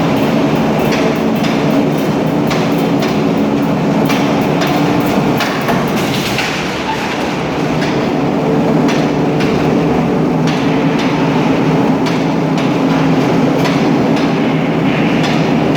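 Cut-to-length line for 5–12 mm coiled steel sheet running: a steady machine drone with repeated sharp metallic knocks and clanks, about one or two a second.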